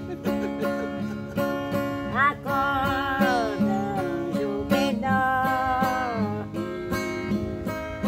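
Acoustic guitar strummed in a steady rhythm, accompanying a woman singing a slow folk song; her long held notes waver and slide down at the ends of phrases.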